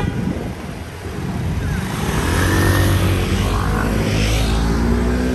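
Motor vehicle engine passing close by on the street, its rumble building from about two seconds in and peaking a second or two later, then settling into a steady hum.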